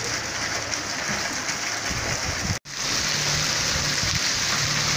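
Steady hiss of heavy rain falling on the street and rooftops. It drops out for an instant about halfway through, then carries on a little louder.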